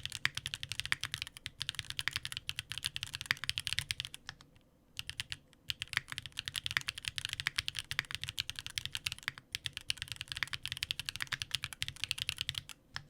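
Fast typing on a Sangeo65 mechanical keyboard with stock Magma linear switches, GMK keycaps and an aluminium plate with plate foam: a dense run of keystroke clicks with a low thud under them. The typing pauses briefly about four seconds in and stops just before the end.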